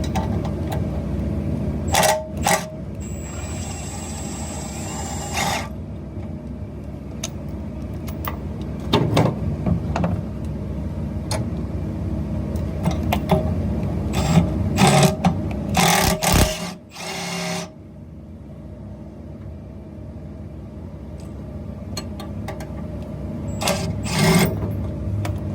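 Milwaukee stubby cordless impact wrench with Astro stubby 3/8-inch impact sockets, run in several short bursts, the longest lasting a couple of seconds. Underneath is a steady low hum.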